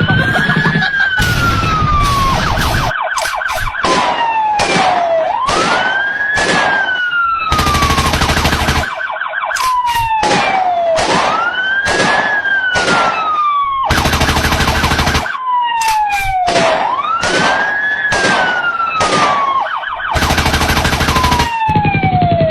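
A wailing siren that rises quickly and falls slowly, repeating about every five and a half seconds, with rapid sharp bangs and rattling bursts laid over it like gunfire.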